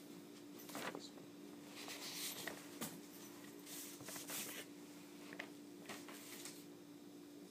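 Faint scratching and rustling in short, irregular spells over a steady low hum.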